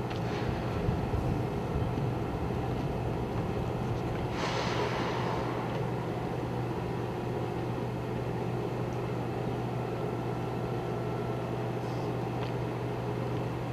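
Steady low drone of a boat's engine running. A short rushing noise cuts through it for about a second, about four seconds in.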